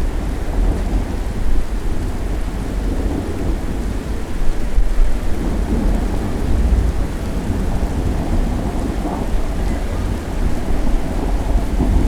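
Thunder rumbling low and long, swelling and fading several times, over steady rain falling on surfaces.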